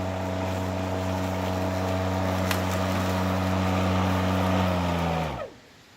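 ECHO 58V battery-powered lawnmower running with a steady hum, then switched off about five seconds in, its motor and blade spinning down with a falling pitch until they stop.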